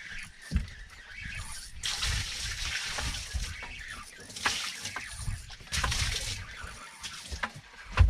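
Sea water splashing and sloshing at the side of the boat in several uneven bursts of hiss, over a low rumble.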